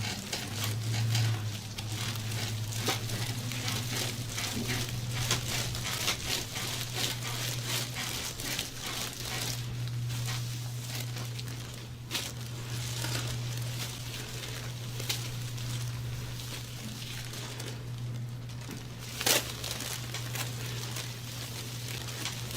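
Hands working a patient's back in a deep-tissue massage: a steady rubbing and crinkling as the hands move over the skin and the table, over a steady low hum, with one sharp click near the end.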